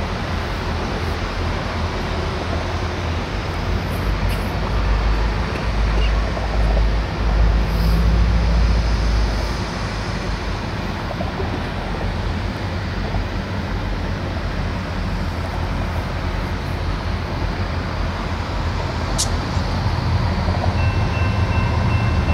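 Diesel-electric locomotives running as they move slowly through a rail yard: a steady low engine rumble that swells for several seconds about 4 to 10 seconds in.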